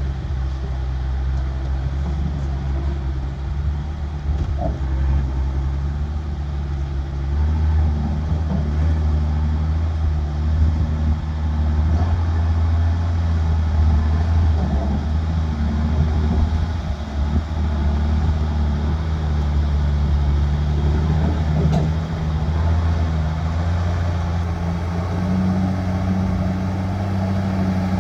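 Diesel dump truck engine pulling hard under load as the truck climbs out of a pit. The engine note steps up about seven seconds in and again near the end.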